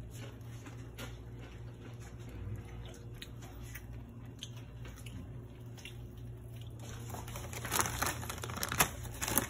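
A potato chip bag crinkling and crackling, starting loud about three-quarters of the way through. Before that, a low steady hum with faint ticks.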